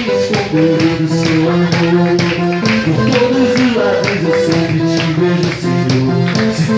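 Band music without vocals: held instrumental chords and notes over a steady percussion beat.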